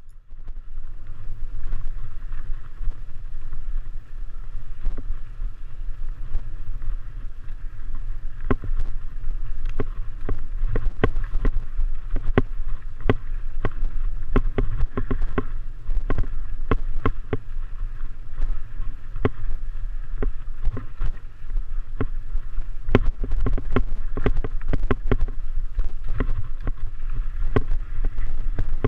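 Mountain bike descending rocky singletrack: a steady low rumble of wind on the microphone, with frequent sharp clatters and knocks as the bike rattles over rocks.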